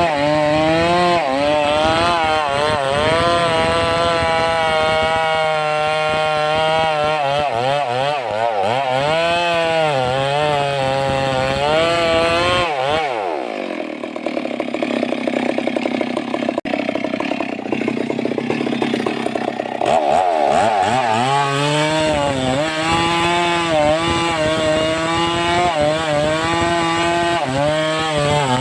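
Stihl 382 two-stroke chainsaw running under load, its engine pitch wavering as it works through wood. About 13 seconds in the revs climb sharply and hold high for about seven seconds, then fall back to the lower, wavering working pitch.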